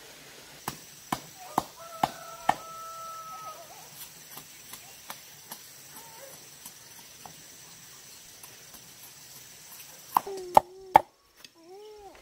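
Repeated sharp chopping knocks, about two a second for a couple of seconds, then lighter scattered taps, and a few loud knocks near the end. A short pitched call sounds alongside the last knocks.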